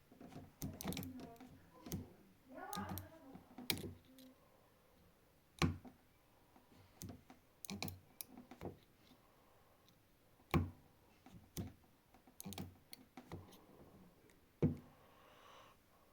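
Sharp clicks and snaps, about a dozen spread irregularly, from a homemade microwave-oven-transformer spot welder being fired and handled while welding a stack of thin metal strip. The loudest snaps come a little after ten seconds in and again near the end.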